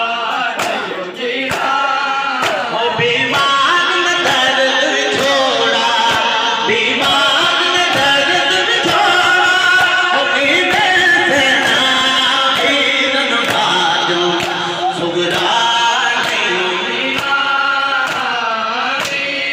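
A noha, a Shia mourning lament, sung by a man through a microphone and loudspeaker, with a crowd of male voices joining in. Sharp slaps of chest-beating (matam) keep a steady rhythm under the singing.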